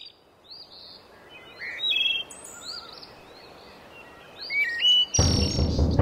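Several birds chirping and whistling in short rising and falling calls over a faint forest hiss. About five seconds in, a loud, low drum rumble starts under the birdsong.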